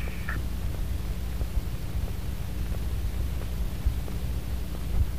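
The last of a hardcore song cuts off right at the start, leaving the steady low hum, faint hiss and small clicks of a cassette demo tape playing between tracks.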